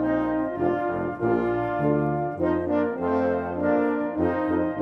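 Background music: an instrumental piece of held notes that change every half second or so.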